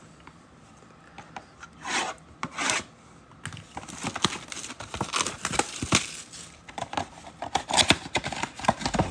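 A trading-card mega box being unwrapped and opened by hand: rasping rips and the crinkle of plastic wrap and card packs. There are two longer rasps about two seconds in, then a busy run of small clicks and rustles from about three and a half seconds on.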